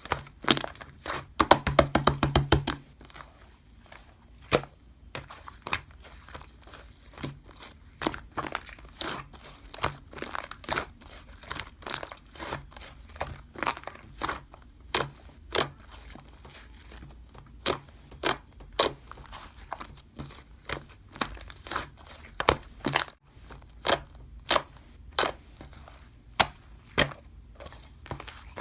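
Slime being squished and pressed by hand, making sharp, irregular pops and clicks, with a dense run of rapid clicks about two seconds in.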